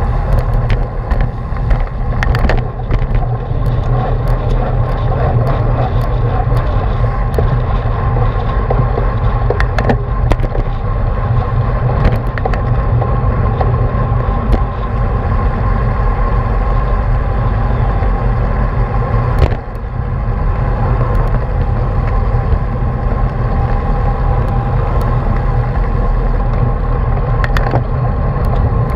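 Wind rushing over a bicycle-mounted action camera's microphone at racing speed, with steady tyre and road noise and scattered sharp clicks and knocks from the bike.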